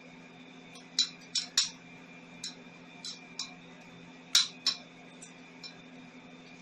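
Inverter welding machine humming steadily on DC, with irregular sharp cracks as an aluminium welding electrode strikes an arc on the workpiece in short bursts, loudest about a second in and again a little after four seconds.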